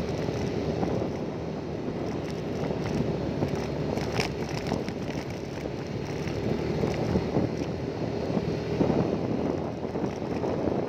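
An engine running steadily under heavy wind noise on the microphone, with a brief sharp click about four seconds in.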